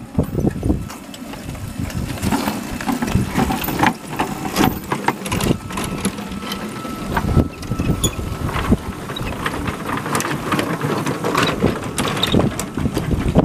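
Backyard ride-on miniature train running along its track: a steady low rumble with many irregular sharp clicks and clacks.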